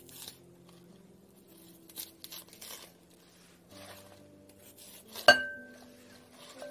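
Spring cabbage leaves rustling and being sliced and handled in a glass bowl. About five seconds in, a single sharp clink with a brief ringing tone as the kitchen knife strikes the glass bowl.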